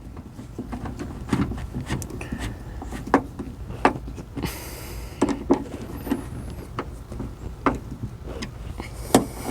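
Irregular clicks, taps and light knocks from hands and tools working on parts inside a Lexus SC430 door, with a short scraping rustle about halfway through.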